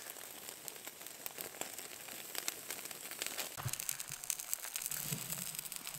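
Small campfire crackling with many quick, irregular ticks and pops over a low hiss, and a soft thump about three and a half seconds in.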